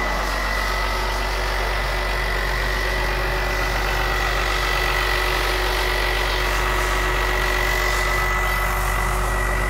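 Massey Ferguson 6485 tractor's six-cylinder diesel engine idling steadily, heard from inside the cab as an even low drone with a thin steady whine above it.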